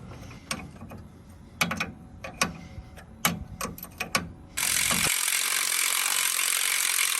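Hand tools clicking and clanking against steel suspension parts and bolts, a scattered dozen sharp clicks, then a loud, steady hiss that starts suddenly about four and a half seconds in and runs on.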